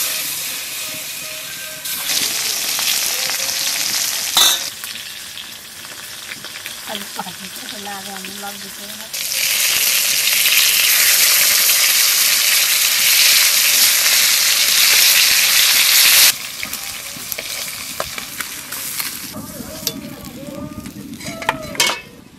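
Aar catfish steaks sizzling as they fry in a little oil in a metal karai, with a spatula stirring and turning them. The sizzle is loudest for several seconds in the middle, then drops off suddenly.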